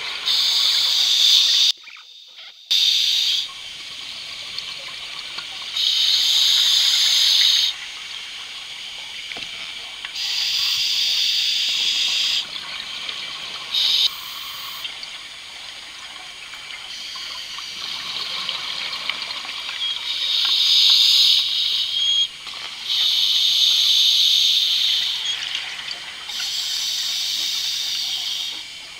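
Scuba diver breathing through a regulator underwater: loud bursts of hissing and bubbling, each one to two seconds long, coming every few seconds, over a steady watery rush.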